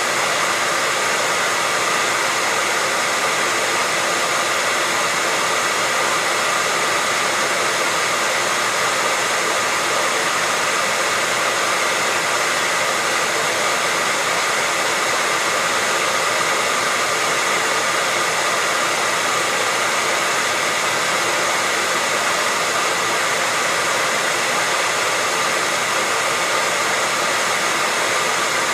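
Electric hair dryer running steadily: a constant rush of blown air with a faint high motor whine, unchanging throughout.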